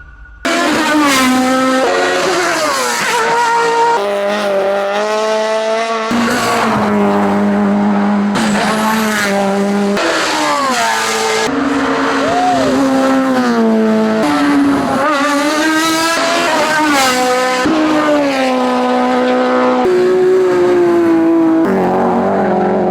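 Racing car engines at high revs on a hillclimb run, climbing and dropping in pitch through gear changes. It is a quick sequence of different cars, cut together every couple of seconds.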